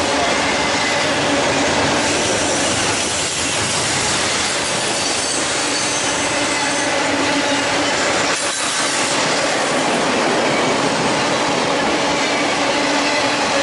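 Double-stack intermodal well cars of a freight train rolling past at close range: steady loud wheel-on-rail noise with thin, steady squealing tones from the wheels.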